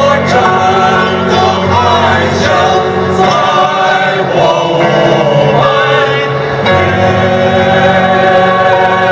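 Five-man male vocal group singing together into microphones, holding notes with vibrato, over electronic keyboard accompaniment.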